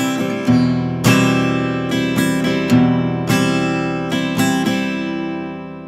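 Background music: a strummed acoustic guitar playing chords, each strum ringing on, with the last chord fading out near the end.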